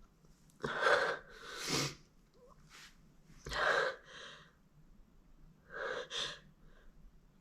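A woman's build-up gasps and stifled sneezes, held in with her nose pinched shut, coming as about four short breathy bursts a second or two apart.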